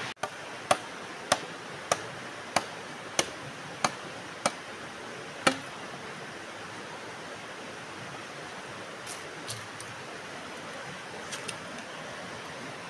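Eight sharp chopping strikes, about one every two-thirds of a second, from a machete cutting bamboo, stopping about halfway through. A stream flows steadily underneath, with a few faint clicks near the end.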